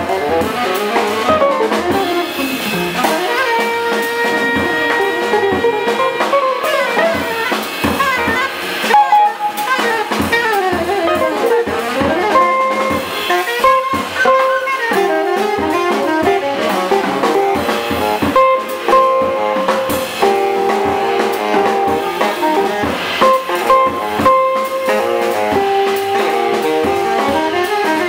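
Jazz quintet playing live: saxophone lead over hollow-body electric guitar, piano, upright bass and drum kit. The saxophone mixes quick runs with held notes.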